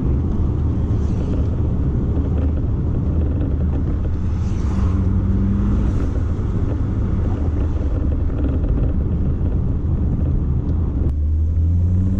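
Toyota MR2's turbocharged 3S-GTE four-cylinder engine and tyre noise heard from inside the cabin while cruising, a steady low drone. Near the end the engine note climbs as the car accelerates.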